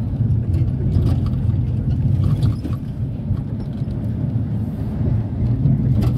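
A minibus driving along, heard from inside the cabin: a steady low engine and road rumble, with a few light knocks and rattles now and then.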